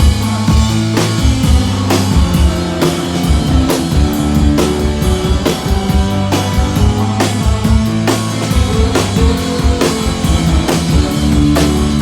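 Live rock band playing: a drum kit keeps a steady beat of hits under held keyboard chords.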